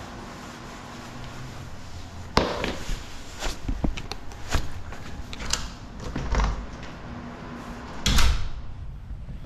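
Footsteps and handling noises on a hard indoor floor: a sharp click about two seconds in, a run of separate knocks and scuffs, and a louder clatter near the end as a door is reached.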